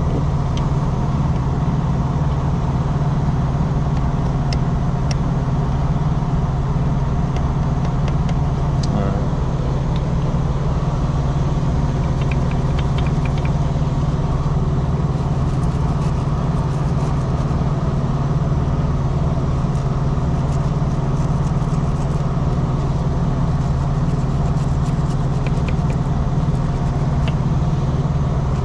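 Truck engine idling steadily, a deep even drone that does not change, with a few faint clicks scattered through it.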